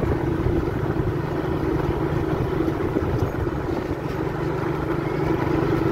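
Motorcycle engine running steadily while riding at speed, with wind on the microphone.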